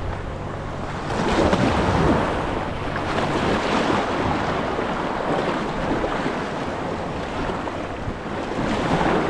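Surf washing against the rocks of a jetty, with wind buffeting the microphone; the wash surges louder about a second in and again near the end.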